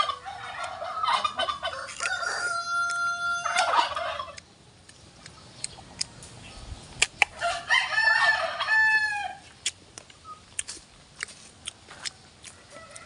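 Rooster crowing twice, one long crow in the first four seconds and another about eight seconds in. In between and after, sharp crunching clicks of biting into and chewing a raw green mango.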